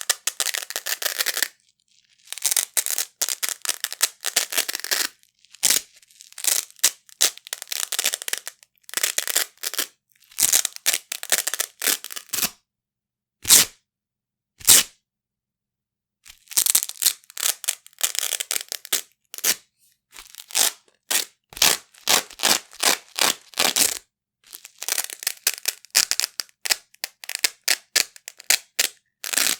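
Large pieces of hook-and-loop (Velcro) fastener ripped apart again and again, each rip a crackly tearing run, some drawn out over a second or two and some quick, with short pauses between. About halfway there are two single quick rips on their own.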